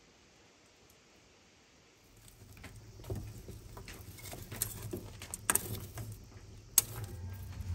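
Near silence for about two seconds, then a wood fire of thin sticks crackling and snapping, with scattered pops and one sharp snap near the end as the burning sticks are pushed about with an iron rod.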